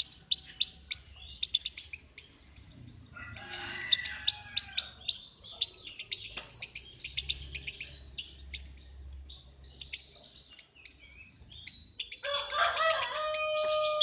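Lovebird singing: a long run of rapid, sharp, high-pitched chirps and chattering. A louder, lower, drawn-out call comes in briefly a few seconds in and again near the end.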